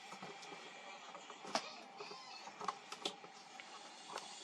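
Faint handling noise from a wobbly camera tripod: scattered light clicks and knocks at irregular intervals over a low steady hiss.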